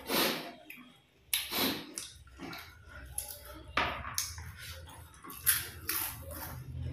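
Close-up mouth sounds of people eating katla fish head with their fingers: irregular wet smacks, sucks and slurps, a few every second or so.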